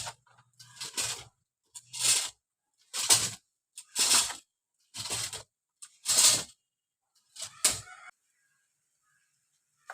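Cutting strokes on a coconut tree, about one a second, each a short noisy burst; they stop about two seconds before the end.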